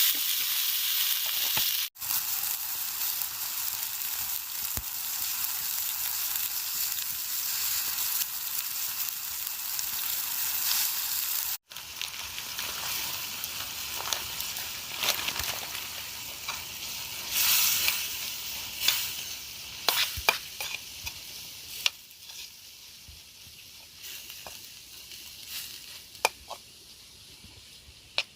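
Coconut grubs (gongo larvae) sizzling as they fry, with scattered pops and crackles. The sizzle dies down through the second half.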